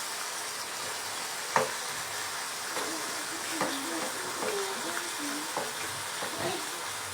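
Bacon frying in a pan: a steady sizzle with scattered pops and crackles, the sharpest about one and a half seconds in.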